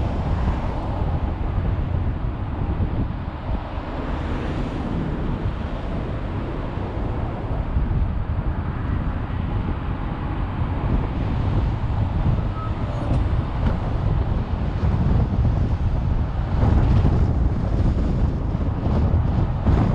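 Steady low rumble of road and wind noise from a car driving, heard inside the cabin, getting a little louder in the last few seconds.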